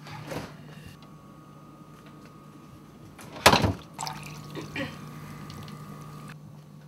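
Water poured from a Brita filter pitcher into a drinking glass. A refrigerator door is handled at the start, and there is a single sharp knock about halfway through, the loudest sound.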